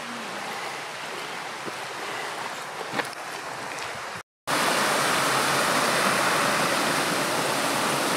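Small mountain stream rushing over rocks: a steady rush of water, fainter at first, then after a brief break about halfway, louder and closer.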